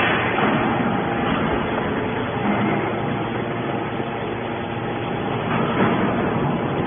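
Hydraulic metal baler running: a steady mechanical noise with no clear strokes or pauses.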